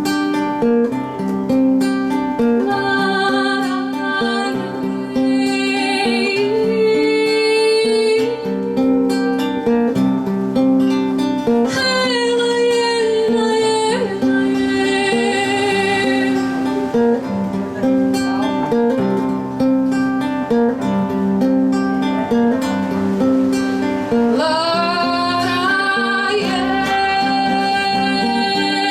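Live acoustic music: a guitar strumming steady chords under a melody of long held notes, which slides upward near the end.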